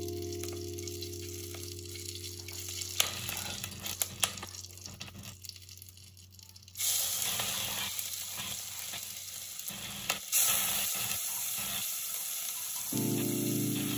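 Whole spices and dried red chillies frying in hot oil in a pressure cooker, with a steady sizzle and a few light clicks. About seven seconds in the sizzle jumps suddenly louder as ginger-garlic and green chilli paste hits the oil, and it stays loud.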